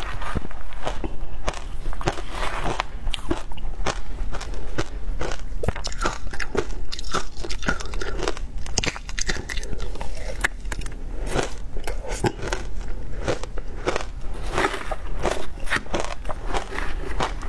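Close-miked crunching and chewing of ice mixed with matcha milk powder and passion fruit, a steady run of sharp cracks, with a metal spoon digging and scraping through the ice in a plastic tub.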